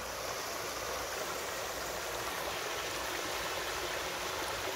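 Small mountain stream running over rock ledges and a little cascade, a steady rushing of water.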